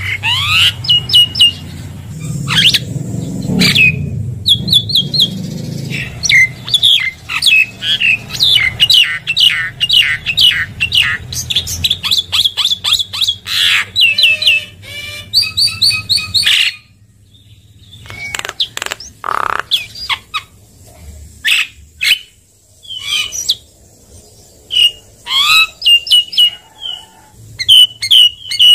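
Javan myna (jalak kebo) singing a varied, rapid string of chirps, whistles and harsh notes. About two-thirds of the way through the background drops away and the calls become sparser and quieter.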